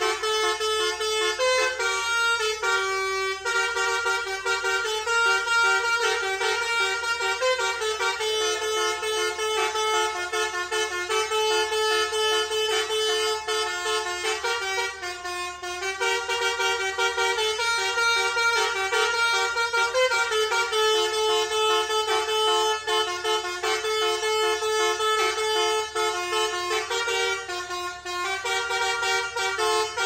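Basuri telolet multi-tone bus horn played like a keyboard: a continuous tune of held and changing horn notes.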